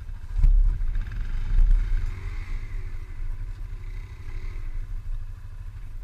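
ATV engine idling with a steady low rumble, and a sharp knock about half a second in. Fainter in the distance, a second ATV's engine note rises and falls as it revs in the mud.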